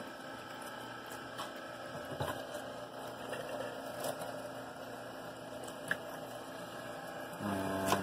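A steady low mechanical hum with a few faint clicks and knocks, and a short pitched hum near the end.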